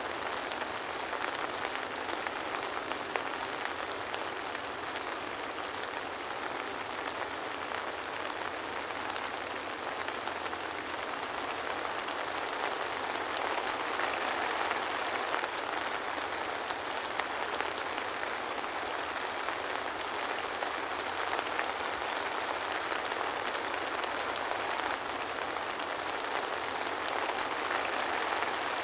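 Soft rain falling steadily, an even hiss of rain with scattered small drop ticks and no thunder.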